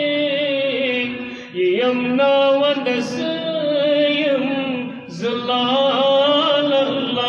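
A man singing a naat, a devotional song in praise of the Prophet, with no instruments, in long held notes with vibrato. He breaks briefly for breath about one and a half seconds in and again about five seconds in.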